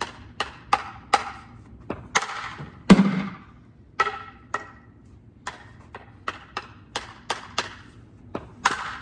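Field hockey stick tapping a ball up in the air in quick strokes, about three taps a second, with harder hits as the ball is shot. Some knocks ring briefly, and the loudest is a heavy thud about three seconds in.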